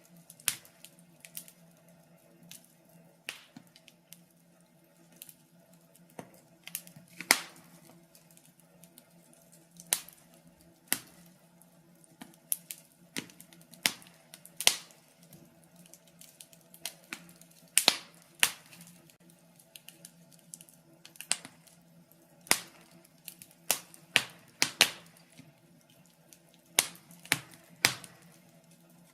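Wood fire crackling in a fireplace: irregular sharp pops and snaps, one or two a second.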